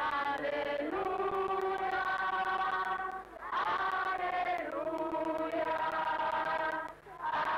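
A group of voices singing together without instruments, in long held notes, with brief pauses about three seconds in and again near the end.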